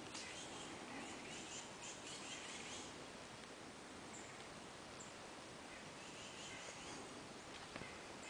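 Faint woodland ambience: a steady low hiss with small repeated chirps from wild creatures in the trees. A few faint clicks come near the end.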